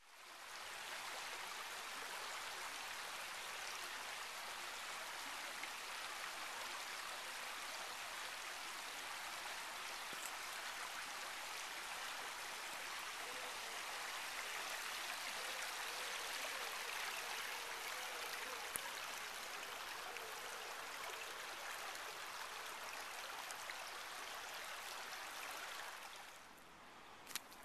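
Shallow stream running over stones: a steady rush of water that fades away near the end.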